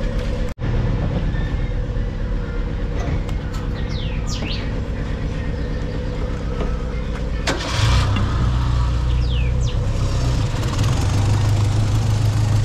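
Renault 4's four-cylinder engine idling steadily. About eight seconds in there is a brief rush of noise and the engine note gets louder.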